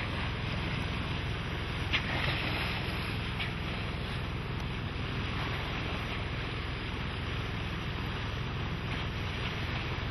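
Steady rush of water along a sailboat's hull, with wind on the microphone, and a brief splash about two seconds in from Dall's porpoises surfacing at the bow.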